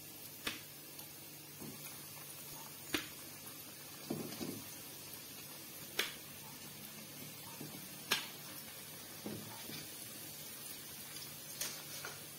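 Breaded cassava pieces deep-frying in a wok of hot oil: a steady sizzling hiss, broken by about five sharp clicks of metal tongs, every two to three seconds, as pieces are laid into the oil.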